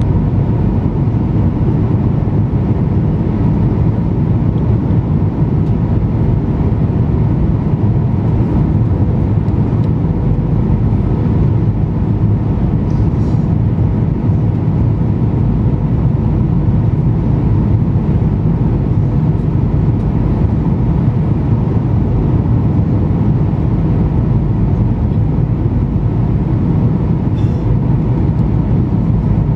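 Steady roar of a Boeing 737-900ER's cabin noise on approach, its CFM56-7B turbofan engines and the airflow over the airframe heard from a seat by the wing, with a faint steady hum running through it.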